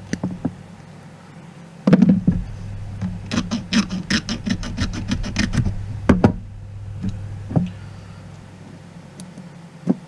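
Small flush side cutters snipping the centre pin of LMR400 coax with a sharp snap, followed by a quick run of about a dozen light clicks and a louder knock from handling the cable and tools on the bench, over a steady low hum.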